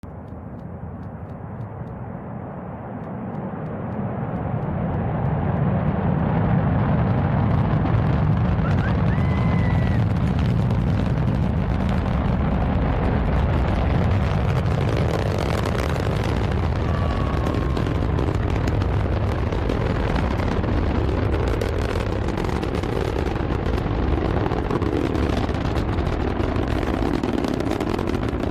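Delta IV Heavy rocket's three hydrogen-fuelled main engines at liftoff and climb: a low rumble that swells over the first five seconds or so, then holds steady and loud with crackling.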